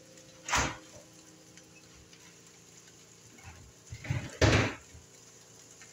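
A door banging shut off-camera twice, about four seconds apart, the second louder and preceded by a lighter knock.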